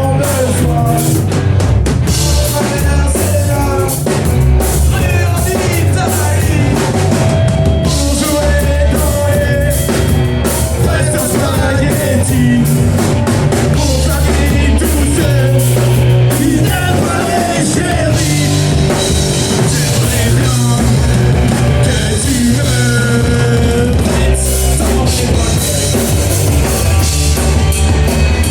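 Live rock band playing: distorted guitars, bass and a pounding drum kit, with a sung vocal line.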